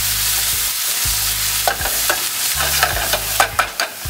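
Chicken tenders, bell peppers and onions sizzling in a hot skillet while a spoon stirs them. The spoon scrapes and clicks against the pan, most often in the second half.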